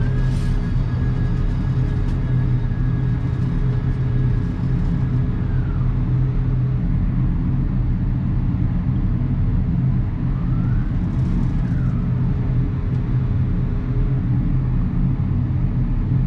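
Electric target carrier of an Action Target range system running a paper target out down the lane. Its motor whine rises, holds steady for about five seconds and falls away, then rises and falls again more briefly about ten seconds in, over a steady low hum.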